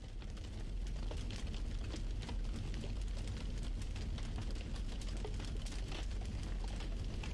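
Fish sizzling on a grill: a faint, steady crackle with many small pops scattered through it.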